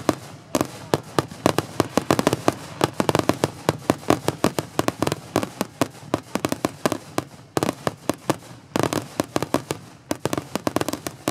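Aerial fireworks bursting in rapid succession: a dense, unbroken string of sharp bangs, several a second, from many shells going off together.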